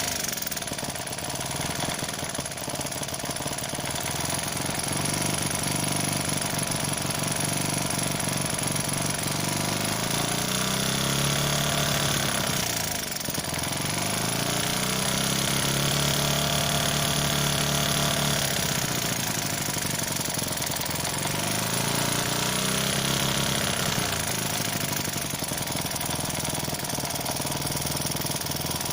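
Small homemade four-stroke engine built from a refrigerator compressor, running with a rapid chugging beat. Its speed sags and picks back up several times.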